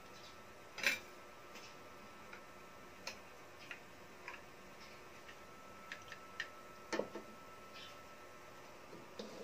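Sparse, irregular light clicks and two soft knocks from a metal utensil and a ceramic plate as a whole boiled chicken is handled and lifted, over a faint steady hum. The knocks come about a second in and around seven seconds in.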